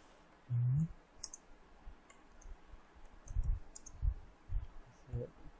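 Laptop keyboard keys clicking in irregular taps as code is typed, with dull low thumps from the keystrokes during the second half. A brief voiced hum comes about half a second in.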